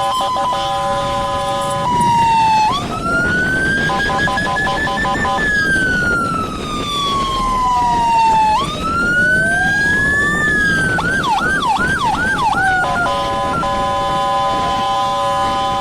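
Electronic emergency sirens switching between tones: a pulsing horn-like tone, then two slow wails that rise and fall, about five quick yelps, and the horn tone again near the end, over the rumble of motorcycle and traffic noise.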